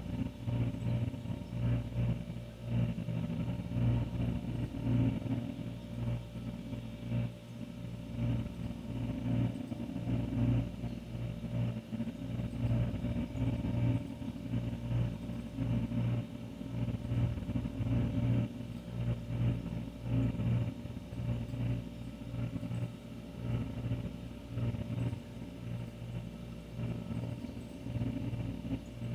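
An old refrigerator running, its compressor giving a steady low hum with a few fainter higher tones. The level swells and dips irregularly.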